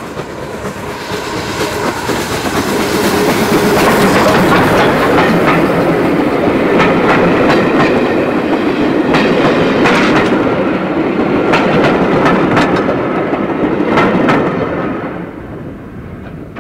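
A GWR Small Prairie 2-6-2 tank engine and its train of coaches passing close by. The sound swells over the first few seconds, with the wheels clicking over the rail joints as the coaches go past, then fades about fifteen seconds in as the train moves away.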